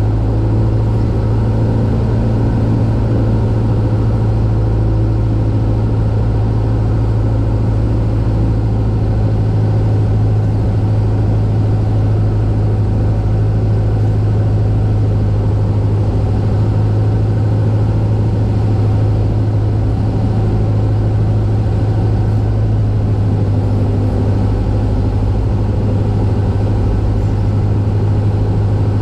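Cessna 172's piston engine and propeller droning steadily, heard from inside the cockpit on final approach.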